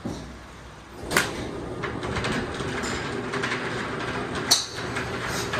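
Golf 7-iron striking a ball off a driving-range mat: a sharp crack about a second in, then a second crack some three seconds later, over steady background noise.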